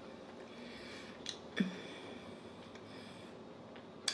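Quiet mouth sounds of someone eating a creamy custard pie: a couple of small wet smacks about a second and a half in and a sharper click near the end.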